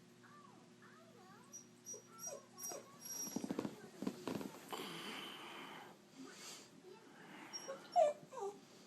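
A pinscher dog whining in thin, wavering high notes, the whimpering of a dog that wants out or wants attention. About three seconds in comes a few seconds of scraping, rustling noise. Near the end there is one short, louder rising whine.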